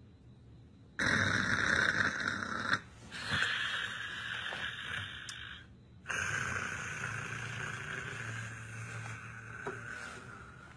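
A man snoring: three long, noisy snores, the last one the longest at about four seconds.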